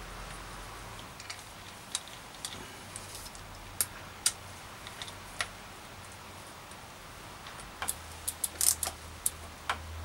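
Scattered light clicks and taps of a crank bolt and hex key being handled and fitted into a bicycle's crank arm, with a quicker run of clicks near the end as the bolt is turned with the key; a faint low hum runs underneath.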